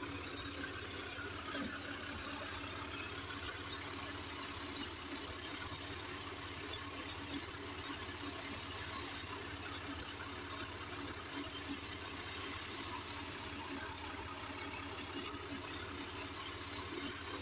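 Tractor engine running steadily at low revs, with small scattered clicks and rattles.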